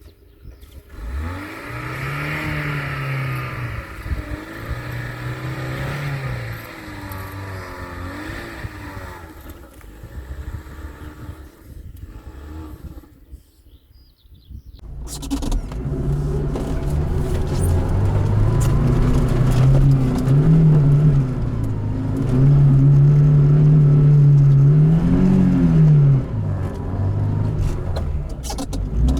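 Lada Niva's engine pulling off-road, its revs rising and falling again and again. About 14 seconds in it drops almost to quiet, then comes back louder with more swings in revs.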